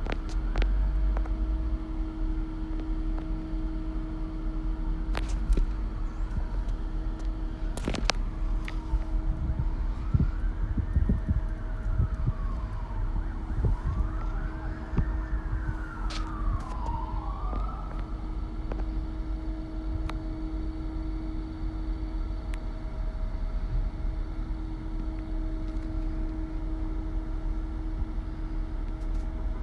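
Vehicle road noise with a steady hum, and through the middle an emergency siren wailing up and down several times before fading out. A couple of sharp clicks come earlier.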